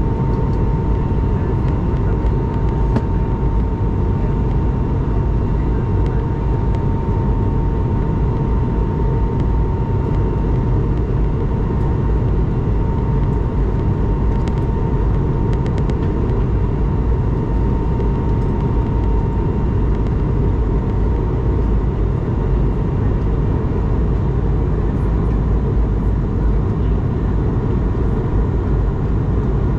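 Steady cabin drone of an Airbus A220-300 airliner in flight, heard from a window seat: a loud, even rush of engine and airflow noise. A thin steady whine rides over it and fades out about two-thirds of the way through.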